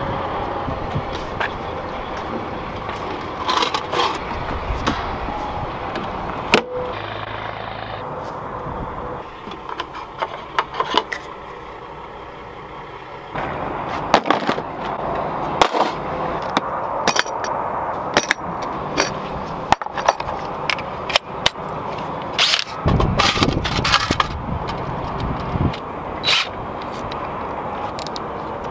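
Clicks, knocks and scrapes of hand tools and a plastic tool case being handled, at uneven intervals over a steady outdoor background noise.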